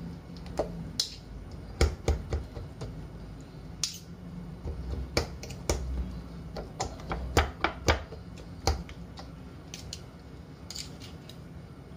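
Metal fork and spoon clicking and tapping against a bowl as they prick and turn pieces of raw pork in a wet marinade. The taps come irregularly, thickest from about five to eight seconds in and fewer near the end.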